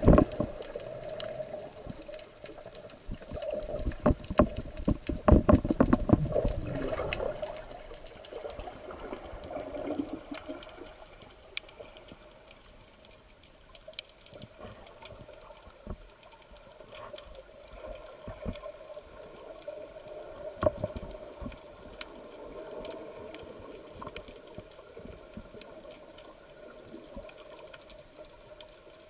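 Underwater sound: a steady faint hum with scattered crackling clicks throughout, and a louder stretch of thumps and rushing water about four to seven seconds in.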